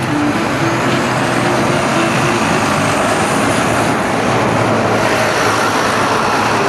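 Steady traffic noise of a busy city street, with buses and cars passing. A faint high whine rises and holds over the first few seconds.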